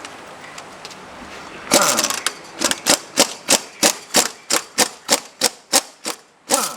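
A short whirring burst that falls quickly in pitch, like a power tool spinning down, then about a dozen sharp, evenly spaced clicks or taps at about three a second.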